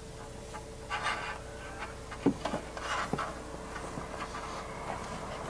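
Solar panel cable being pushed by hand through the refrigerator vent grille on an RV roof: a few brief rustling scrapes and light knocks over a faint steady hum.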